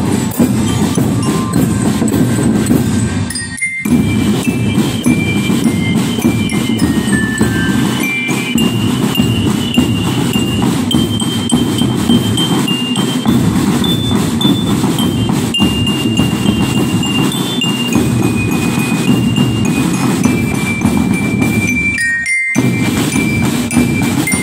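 Marching drum band playing: bell lyres carry a stepping high melody over snare and bass drums. The music breaks off briefly twice, about three and a half seconds in and near the end.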